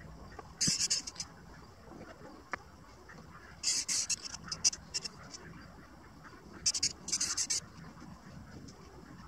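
Aerosol spray-paint can hissing in three short bursts: about a second in, again around four to five seconds in with several quick puffs, and once more around seven seconds in.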